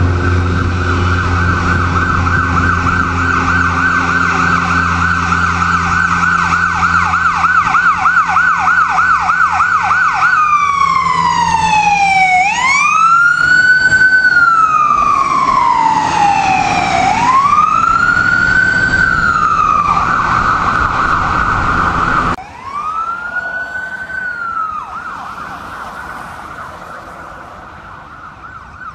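Ambulance siren in a fast yelp over a low steady hum, switching about ten seconds in to a slow wail that falls and rises. Near the end a second, fainter siren wail swells once and fades away.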